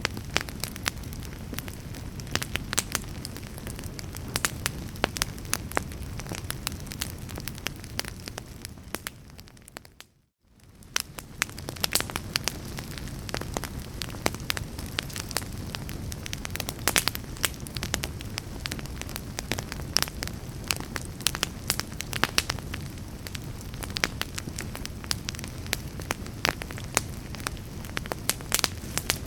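Wood fire burning in a fireplace: many sharp crackles and pops over a steady low rumble of flames. About ten seconds in the sound fades briefly to near silence and fades back in.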